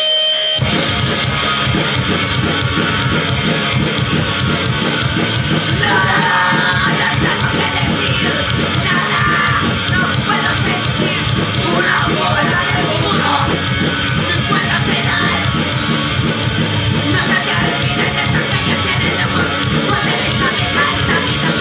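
Punk band playing live: distorted guitars, bass and drums come in together suddenly about half a second in, with shouted vocals from about six seconds in.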